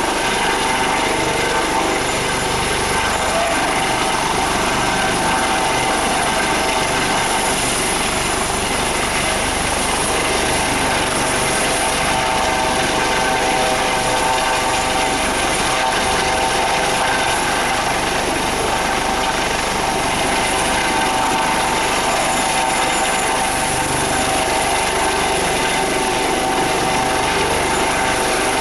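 U.S. Coast Guard HH-65 Dolphin helicopter hovering close by: loud, steady rotor and twin-turbine noise with a steady whine over it.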